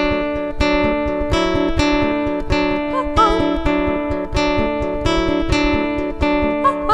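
Acoustic guitar strummed in a steady, even rhythm, an instrumental passage of a song.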